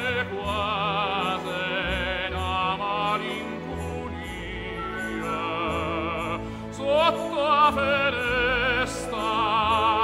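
Background music: an operatic voice singing with wide vibrato over an orchestral accompaniment.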